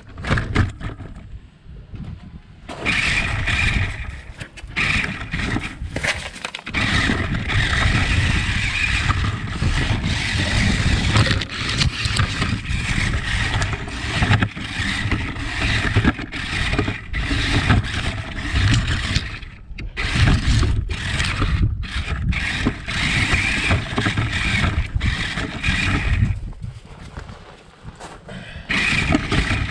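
Radio-controlled car driving in stretches: its motor and wheels run, stop briefly and start again several times.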